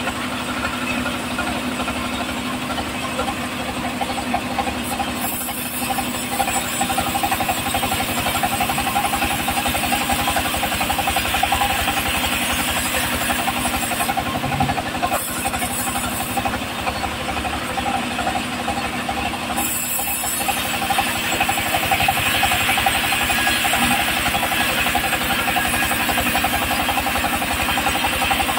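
Homemade band sawmill running, its belt-driven engine chugging with a fast, even beat under the hiss of the band blade sawing a teak log. The sawing grows louder about five seconds in and again about twenty seconds in.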